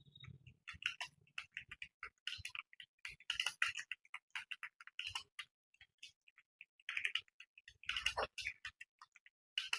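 Computer keyboard being typed on fast: quick irregular runs of key clicks broken by short pauses.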